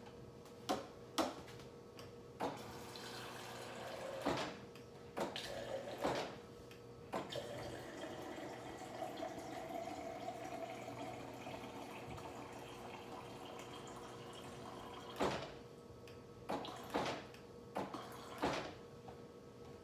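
Water running into a BlendJet portable blender jar, filling it to the 12-ounce mark. A few knocks and clicks of the jar being handled come before and after the pour.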